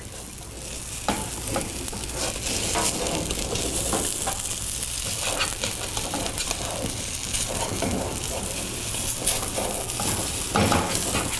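Egg omelette batter frying in a pan over a gas flame. It sizzles steadily, building over the first couple of seconds, while a metal slotted spoon pushes through it with scattered short scrapes and taps against the pan.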